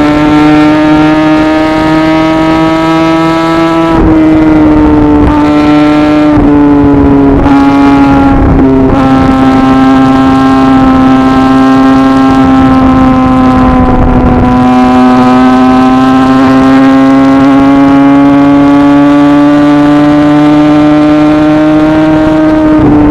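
Kawasaki ZX-10R inline-four sport bike engine running under way, its note climbing slowly and steadily. The note breaks up briefly several times between about four and nine seconds in, then holds and climbs again before dipping slightly near the end.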